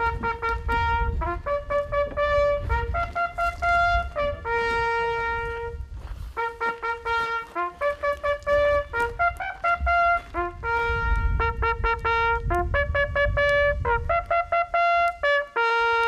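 Brass hunting horn sounding a call: a run of short repeated notes and longer held ones on a few pitches, ending on a long held low note. The call is played as the flag comes down to mark the close of the hunt.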